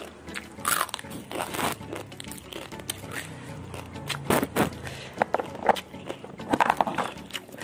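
Dry, uncooked instant noodles being bitten and chewed: irregular crisp crunching and crackling.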